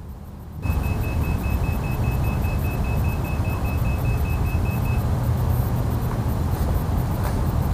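A crashed FPV quadcopter's beeper sounding a steady run of short high beeps, about four a second, that stops about five seconds in. Under it a loud rushing noise with a low rumble comes in suddenly under a second in and carries on steadily.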